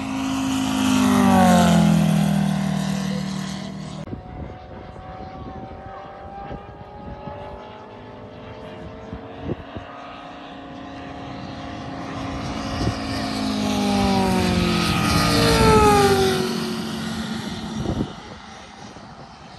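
Radio-controlled model aircraft flying two low passes. Each time the engine swells and then drops in pitch as it goes by, once about a second in and again about fourteen seconds in, and it runs quieter in between.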